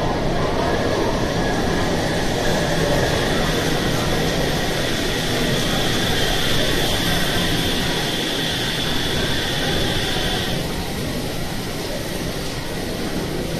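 Shonan Monorail Series 5000 suspended monorail car running, heard from inside the car: a steady running noise with a high whine that stops about ten seconds in.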